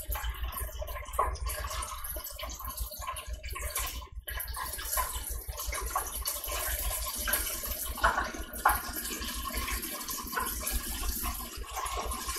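Buttermilk-battered chicken deep-frying in hot oil inside a lidded electric deep fryer: a steady sizzle with scattered crackles.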